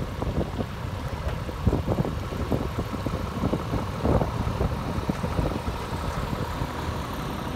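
Truck engine idling, an uneven low rumble with irregular knocks.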